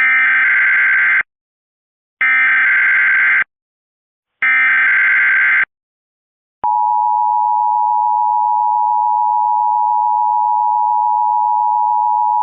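Emergency Alert System monthly test: three bursts of SAME digital header data, a warbling electronic chatter each a little over a second long with about a second of silence between. About halfway through, the steady two-tone EAS attention signal (853 and 960 Hz) starts and holds.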